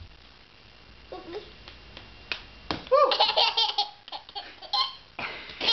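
A toddler laughing in short bursts of giggles, the loudest run about three seconds in.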